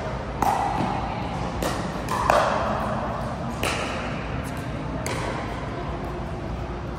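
Pickleball paddles striking the plastic ball in a rally: sharp pops, each with a brief ring, five in all, the loudest a little over two seconds in. They echo in a large indoor hall over a steady low background din.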